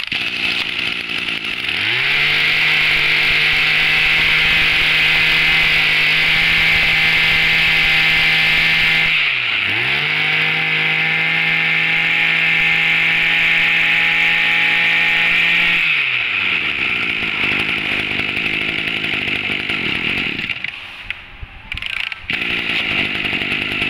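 Hitachi FCG 21EA 21cc two-stroke brush-cutter engine revving up to high speed and held there. About nine seconds in the revs dip briefly and climb again. About sixteen seconds in they drop back to a lower, uneven idle.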